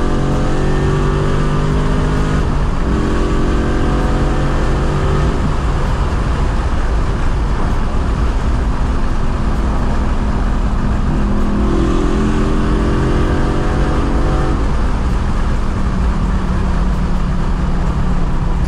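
Straight-piped BMW E92 M3's 4.0-litre V8 heard from the cabin, pulling under load with its note climbing slowly. It pulls through the first five seconds and again from about twelve seconds in, with rougher, less even running between, and settles to a steady lower drone near the end.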